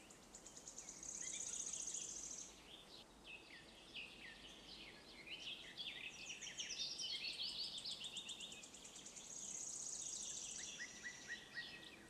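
Birds chirping faintly: many quick high-pitched chirps, with a rapid trill about a second in and another near the end.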